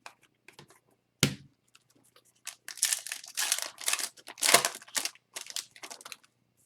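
Wrapper of an Upper Deck hockey card pack being torn open and crinkled, after a few light clicks and a sharper tap about a second in.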